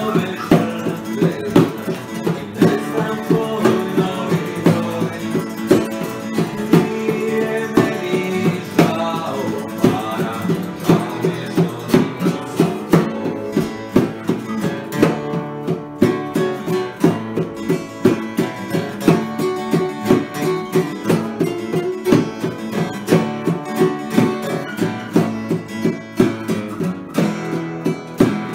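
Acoustic jam of strummed and picked acoustic guitars and a long-necked bowl-back lute, with bongos beating a steady rhythm.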